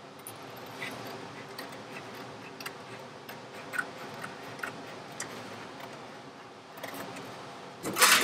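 Scattered light clicks and ticks of scissors and a stiff RAM board floor template being handled and trimmed, with one louder, brief rustle of the board near the end.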